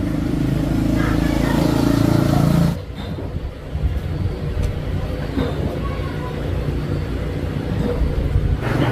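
Small motorcycle-type engine running with a steady, slightly rising pitch, which cuts off abruptly about three seconds in. A lower, uneven rumble with scattered knocks and rattles follows.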